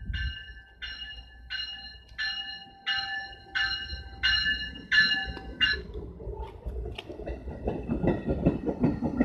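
A warning bell rings about once every two-thirds of a second, growing louder, and stops about six seconds in. A train then rumbles and clatters past on the rails.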